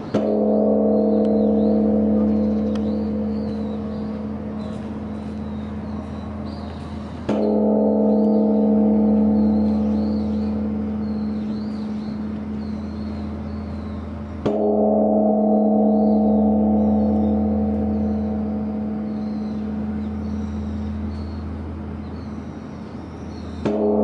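Large bronze Korean Buddhist temple bell (beomjong) struck four times, about seven to nine seconds apart. Each stroke gives a deep humming ring that slowly dies away and is still sounding when the next strike comes.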